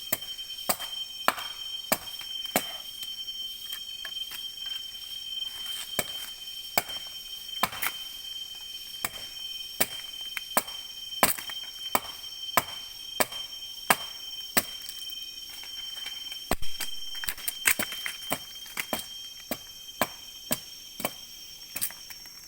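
Steady, repeated chopping of a hand blade into a tree trunk, a sharp strike about every three-quarters of a second, over a steady high insect drone that fades near the end.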